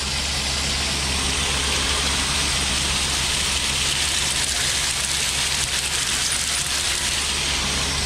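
Steady drone of grain-handling machinery with a constant rushing hiss and faint rattling, as shelled corn pours into a storage bin through its spreader.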